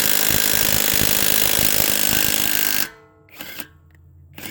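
ZISS 1/2-inch cordless impact wrench hammering on a tight car lug nut in a loud, rapid rattle, which stops about three seconds in; a short burst from the wrench follows.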